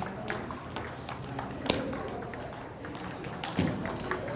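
Table tennis balls being struck and bouncing: an irregular scatter of sharp clicks, with two louder hits about a second and a half in and again near three and a half seconds.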